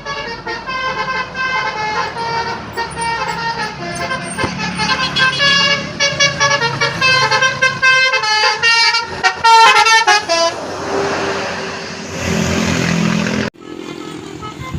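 Bus telolet horn (a Basuri multi-tone air horn) playing a quick melody of short notes, several tones sounding together. About ten seconds in the notes give way to a loud, even rush of noise that cuts off abruptly near the end.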